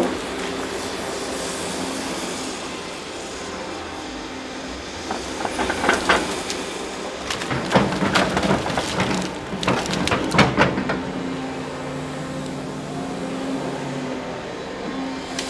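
Cat 330 excavator on a Timberking feller-buncher undercarriage at work, its diesel engine running steadily. Bursts of clanking and knocking come about five seconds in and again from about eight to eleven seconds.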